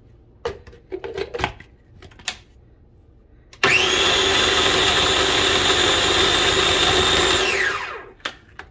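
Food processor blending a thick garlic scape pesto: the motor switches on about halfway through, runs steadily with a high whine for about four seconds, then winds down with a falling pitch. A few light clicks and knocks come before it.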